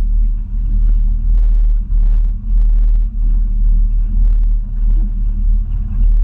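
Tiller-steered outboard motor driving a small aluminium boat under way: a loud, steady low rumble, heavily buffeted by wind on the microphone, with brief dips in level every half second or so.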